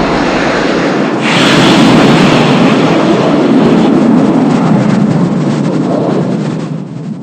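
A loud, heavy rumbling MechaGodzilla sound effect, a dense noise without a clear pitch. It surges again about a second in and fades out near the end.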